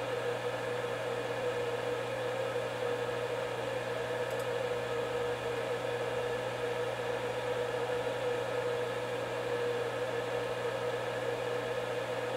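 A small motor running steadily: a constant hum with a held tone through it.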